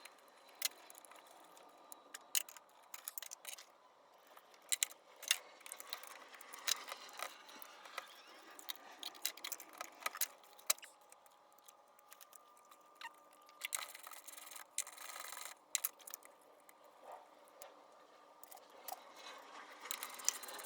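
Hand tools and metal parts being worked in an engine bay: irregular clicks, clinks and short scrapes while the left valve cover of a 4.7L V8 is unbolted and worked free.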